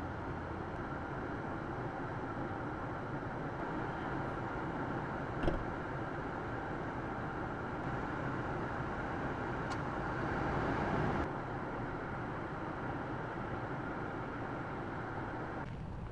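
A car driving, with steady road and engine noise. A single knock comes about five and a half seconds in, and the noise swells louder around ten seconds before cutting off suddenly.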